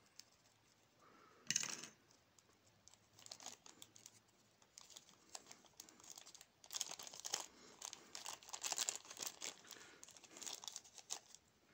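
Small clear plastic zip-lock bag crinkling faintly as fingers handle it and work a metal bead out of it, with a short rustle early on and a denser run of crackles in the second half.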